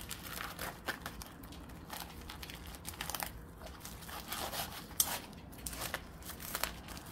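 Plastic bubble mailer crinkling and rustling as a rolled diamond painting canvas is slid out of it, in irregular scrapes with a sharper crackle about five seconds in.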